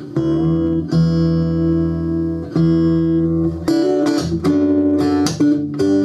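Steel-string acoustic guitar heard through a Fishman Rare Earth Blend pickup system (magnetic humbucker soundhole pickup blended with a condenser mic): three chords struck and let ring, then from about four seconds in quick rhythmic strumming with the percussive click of the hand hitting the strings.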